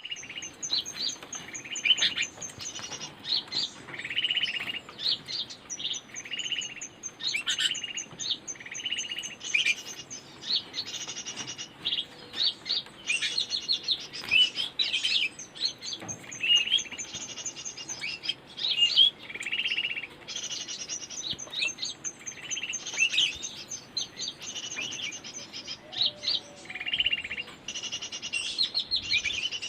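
Pleci (white-eye) chirping and twittering: short, high phrases that come again every second or so.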